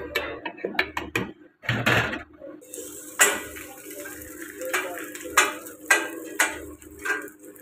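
A spoon clinking against clay pots and ceramic cups at a tea stall, in sharp, irregular clicks. From about a third of the way in, a steady hiss of tea being poured in a thin stream into the cups runs under the clinks, over a constant low hum.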